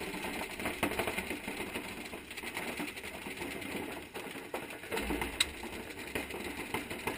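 Several paintball markers firing rapid strings of shots at once, a dense run of fast pops, with one sharper, louder pop about five and a half seconds in.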